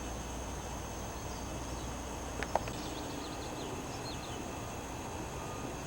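Quiet outdoor background hiss with a few faint, short bird chirps, and two small clicks about two and a half seconds in.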